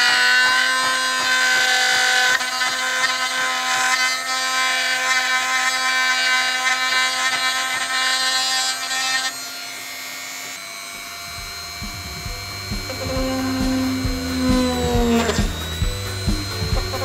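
Handheld electric rotary tool with a small carving bit running at high speed with a steady whine as it cuts into PVC pipe. About ten seconds in the whine drops in level, and background music with a steady beat comes in under it.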